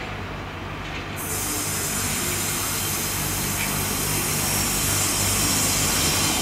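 High Speed Train running in along the platform behind its Class 43 diesel power car, the engine's low hum growing steadily louder as it draws near. A steady hiss comes in about a second in.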